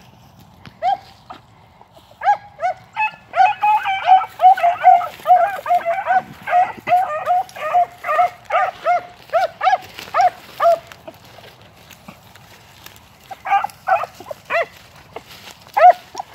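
Beagles baying on a rabbit's trail: short, rapid, pitched hound barks, a few at first, then a dense run of overlapping calls for several seconds. They stop for a couple of seconds and start again near the end.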